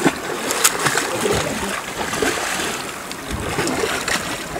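Water splashing as a large hooked yellowtail amberjack thrashes at the surface, with a few short sharp splashes over a steady wash of wind and sea.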